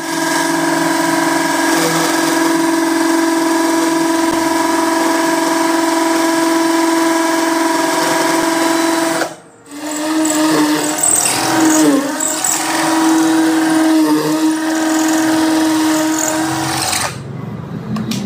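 Cordless drill boring a hole into a wall overhead: a steady motor whine that cuts out briefly about nine seconds in, then runs again with a wavering, rattly pitch as the bit works into the wall, and stops near the end.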